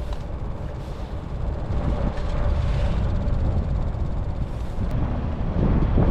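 Wind buffeting the microphone: a steady low rumble with rushing noise above it.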